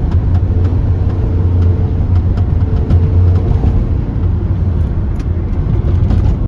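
2005 Toyota Prius being driven: steady road and tyre rumble with many light clicks scattered through it. The clicks are the popping that the owner traces to the front strut mounts after the KYB Strut-Plus struts were fitted.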